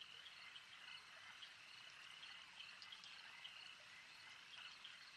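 Faint outdoor ambience: a steady high-pitched chirping chorus, with small chirps repeating irregularly over a soft hiss.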